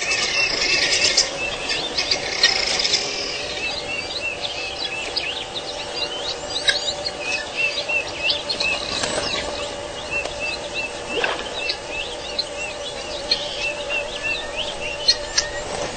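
Many small birds chirping and calling over one another: quick short notes and a repeated little arched call, against a faint steady hum in the background.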